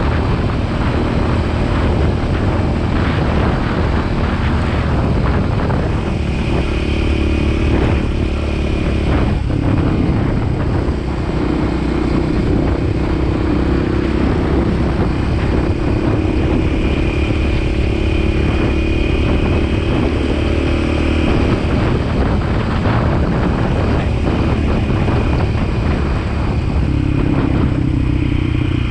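Motorcycle engine running at a steady cruising speed, largely buried under heavy wind buffeting on the microphone.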